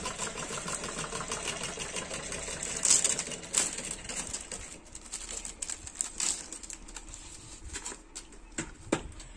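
Clear plastic packaging crinkling and sharp clicks as a plastic phone case is handled and taken out of its sleeve, over a fast mechanical rattle that stops about halfway through.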